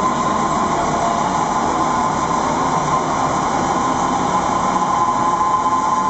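Steady roar of a large waterfall and fast river, an even rushing noise with a faint high whine running through it.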